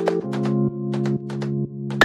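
Electronic background music: synthesizer chords changing about every half second over a steady beat of light ticks.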